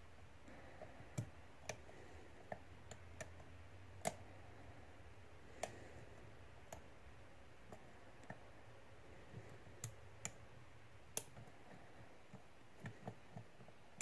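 Faint, irregular small clicks and ticks of a hook pick working the pin tumblers of a Master Lock 410 lockout padlock during single-pin picking, about twenty scattered clicks, as the pins are worked back up after a lost false set.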